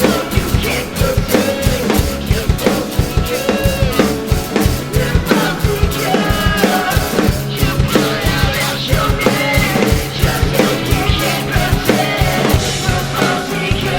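Background music with a steady drum beat: kick and snare under a melodic line.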